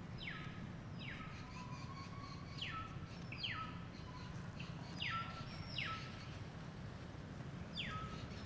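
A bird calling in short notes that sweep steeply down in pitch. They come mostly in pairs, about three pairs and then one more near the end, over a steady low background hum.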